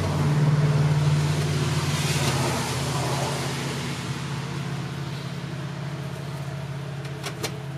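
A steady low mechanical hum with a rush of noise that is loudest in the first few seconds and slowly fades. Two short clicks near the end.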